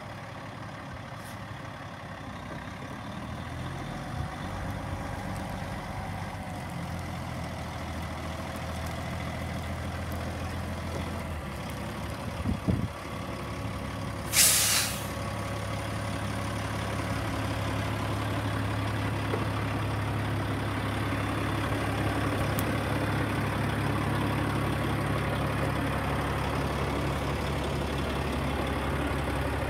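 A 2006 Sterling AT9500 truck-tractor's diesel engine idles steadily and grows gradually louder. A couple of knocks come just before halfway, then one short, sharp burst of air hiss from the truck's air system.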